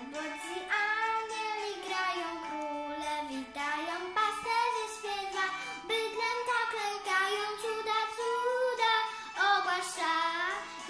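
A young girl singing a Polish Christmas carol solo, in long held, gliding phrases.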